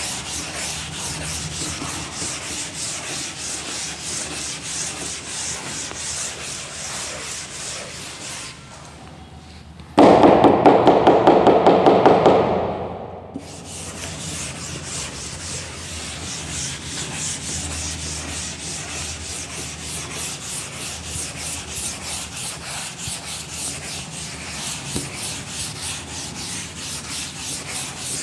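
Chalkboard duster rubbed over a chalkboard in quick back-and-forth strokes, wiping off chalk writing. About ten seconds in the rubbing stops, a louder, lower rapid rattle lasts about two seconds, and then the wiping starts again.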